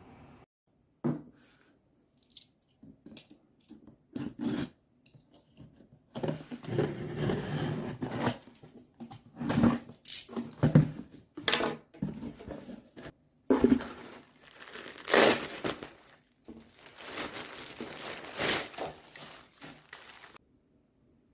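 Irregular tearing and crinkling, with scattered small knocks of handling, stopping shortly before the end.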